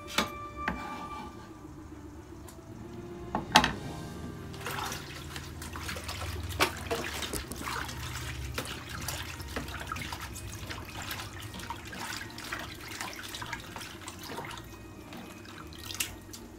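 Hands swishing and splashing cut green onion (negi) pieces in a plastic washbasin of water at a kitchen sink, with many small splashes and knocks. The loudest is a sharp knock about three and a half seconds in.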